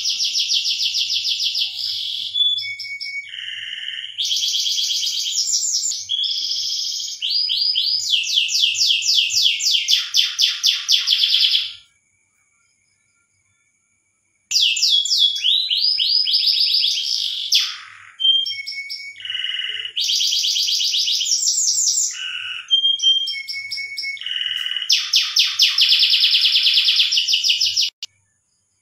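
Domestic canary singing: a long song of fast trills and rolling repeated notes, changing phrase every second or two, with a break of about two seconds near the middle.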